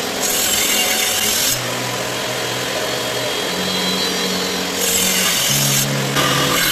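Table saw running while an oak picture frame is pushed through it in a corner jig, the blade cutting spline slots across the mitred corners. The cutting noise swells briefly about a fraction of a second in, again about five seconds in and near the end.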